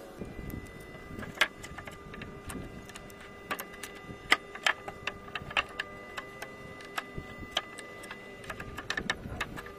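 Wooden boards knocking and clacking as planks are handled and set against one another: irregular sharp wooden knocks, a few louder ones among them, over a faint steady hum.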